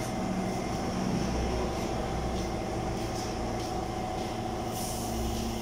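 Steady machine hum with a low rumble and several held tones, with a few faint clicks.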